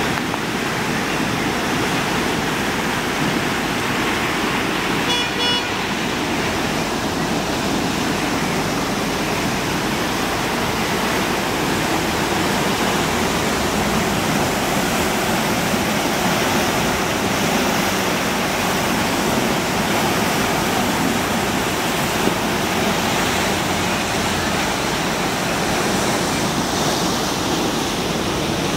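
River in flood, running high and fast, rushing steadily. A short horn toot sounds about five seconds in.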